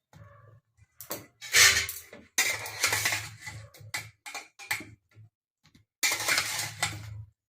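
Metal utensil clinking and scraping against a cooking pot as boiled amla (Indian gooseberries) are scooped out, in a string of short clattery bursts, the loudest about a second and a half in and another cluster near the end.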